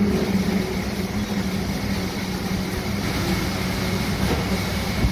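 Steady low machine hum with a faint higher whine over a background haze of noise, unchanging throughout.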